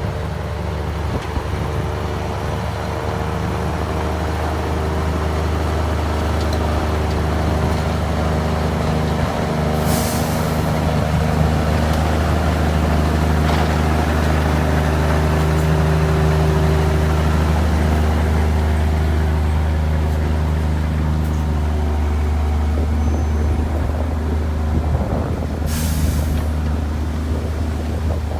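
Komatsu D53E bulldozer's diesel engine running steadily under load, with two short hisses, one about ten seconds in and another near the end.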